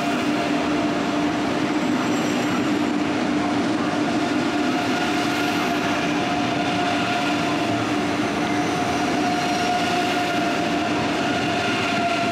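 DB ICE high-speed train rolling slowly past along the platform: a steady electric hum in a few tones over a continuous rumble of the wheels on the rails.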